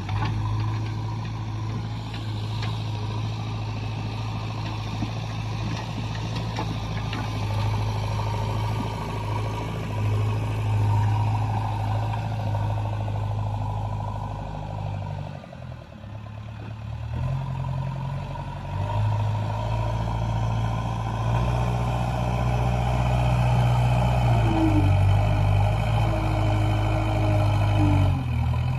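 JCB backhoe loader's diesel engine running under work, steady at first, dipping briefly about halfway, then speeding up and settling back several times as the machine works.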